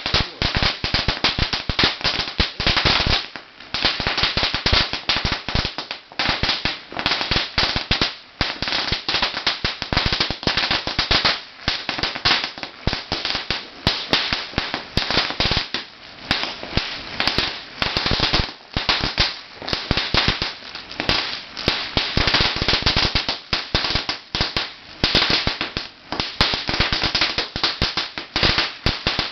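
A 50,000-count string of red paperless firecrackers going off in a rapid, continuous rattle of bangs, with a few momentary lulls.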